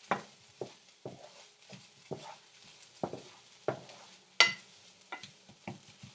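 Wooden spatula stirring and scraping diced onions around a pan in irregular strokes, with one sharp clack about four and a half seconds in. The onions are sautéing in a dry pan without oil, and a light sizzle runs under the strokes.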